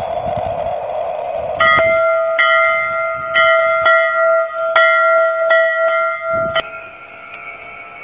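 Large brass temple bell rung by hand with its clapper: about seven strikes over five seconds, each ringing on into the next, starting about one and a half seconds in after a steady hum. A higher-pitched bell tone rings on near the end.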